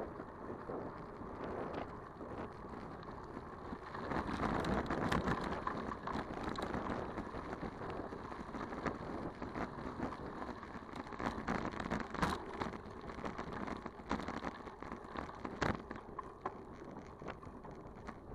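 Bicycle riding over a rough dirt track: the tyres crunch and crackle over gravel, with frequent clicks and rattles. It gets louder about four seconds in.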